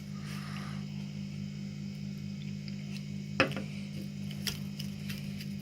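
A fork clicking against a mixing bowl while stirring slime: one sharp click about three and a half seconds in and a few fainter ticks, over a steady low hum.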